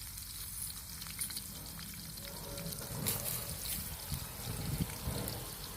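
Hot oil sizzling steadily in a frying pan as bananas fry, with small crackles and a sharper click about three seconds in.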